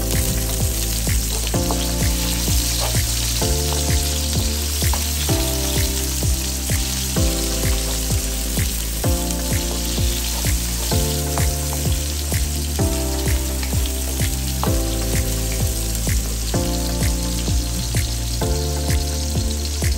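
Sliced onions and garlic sizzling in hot oil in a wok, a steady frying hiss. Background music with a steady beat plays over it.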